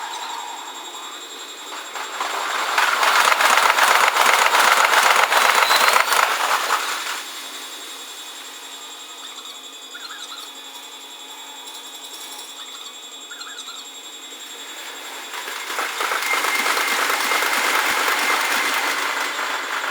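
Trains passing a railway level crossing. One goes by loudly from about two seconds in for some five seconds, with a rapid clatter of wheels over the rail joints. A second swells up over the last few seconds.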